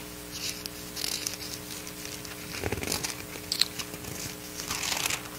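Thin Bible pages being turned, with several soft paper rustles and crinkles over a steady faint hum.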